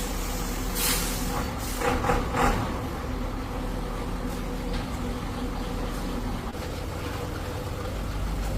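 A truck engine running steadily, with a short hiss of released air about a second in and a few brief louder bursts soon after.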